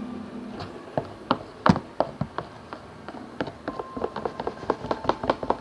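A quick, irregular run of small sharp clicks and taps that comes thicker and faster toward the end.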